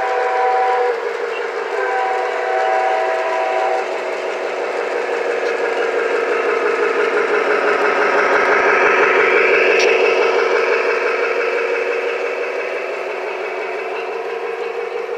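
Model trains running on the layout's track: a steady clattering rumble that swells as a train passes close, loudest around the middle, then eases off. Two short horn blasts sound near the start.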